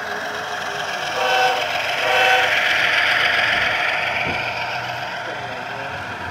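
Sound-equipped model diesel locomotive passing close by with a string of hopper cars. It runs with a steady rushing noise that swells as it goes by, and gives two short horn toots about a second and two seconds in.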